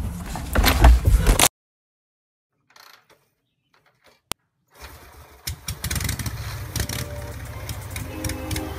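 Motorcycle engine and ride noise that cuts off abruptly about a second and a half in. After a few seconds of silence and a single click, an engine starts about five seconds in and runs steadily, with music coming in faintly near the end.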